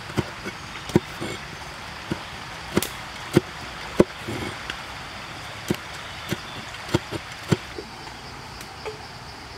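Knife blade chopping red chilies against a wooden cutting board: irregular sharp knocks, about one every half second to second, over a steady background hiss.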